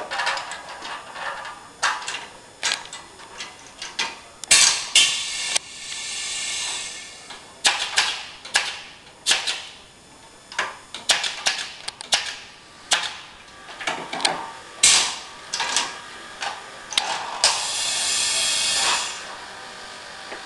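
Canvas stretching equipment at work: a string of sharp clacks and knocks, with longer hissing stretches about four to seven seconds in and again near the end.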